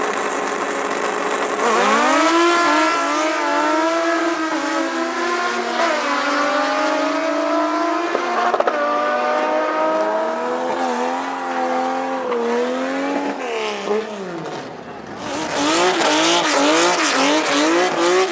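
A race car's engine accelerating hard, its pitch climbing about two seconds in and dropping back at several gear changes. Near the end an engine is revved in quick repeated blips.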